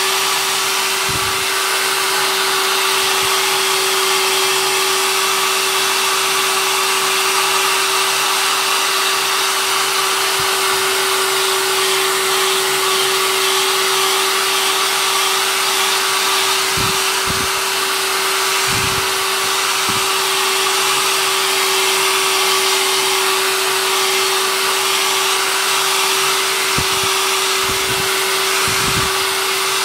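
Hand-held hair dryer running steadily with a constant whine, drying the wetted back of a slack canvas so that it shrinks tight. A few brief low thumps come through in the second half.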